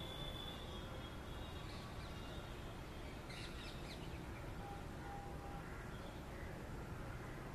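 Outdoor ambience: steady low background noise with scattered bird calls, including a quick run of chirps about three seconds in and a short low whistled note around five seconds.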